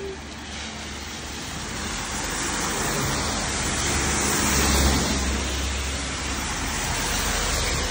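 A vehicle passing on a wet road: tyre hiss and a low engine rumble build to a peak about five seconds in, then ease off.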